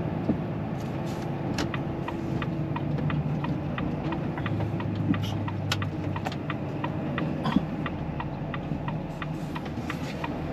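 Volvo FH 540 truck's 13-litre six-cylinder diesel running steadily, heard from inside the cab, with a light, regular ticking about two to three times a second.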